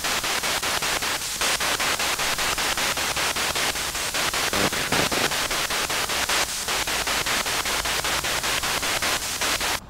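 Spirit box sweeping radio stations through a small amplifier speaker: a steady hiss of static chopped about seven times a second, with a few brief fragments breaking through the noise. The hiss cuts off suddenly near the end.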